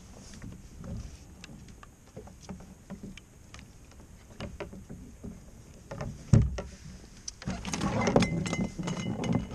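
Handling noises on a fishing kayak as a rockfish is clipped onto a stringer: light clicks and knocks, then a hard thump about six seconds in. A louder spell of rattling and water noise follows near the end.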